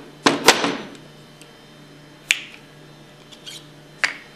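Sharp clicks and knocks from removing the bearing dust covers of a Hypro roller pump. There is a loud cluster of knocks with a brief ring near the start, then single clicks about two seconds in and again near the end.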